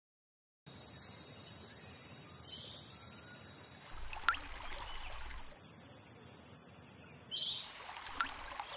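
Crickets trilling steadily in a high, pulsing chorus that starts after a moment of silence and drops out briefly in the middle. Two short bird chirps and a few single water drips are heard along with it.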